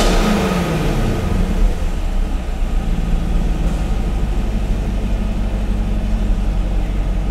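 2021 Chevrolet Camaro SS's 6.2L LT1 V8 engine coming down from about 2,000 rpm after a rev, its pitch falling through the first second or so. It then settles into a steady idle.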